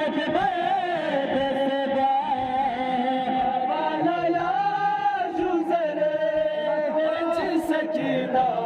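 Men chanting a noha, a Shia Muharram lament, led by a reciter singing into a handheld microphone; several voices hold long, wavering sung lines together.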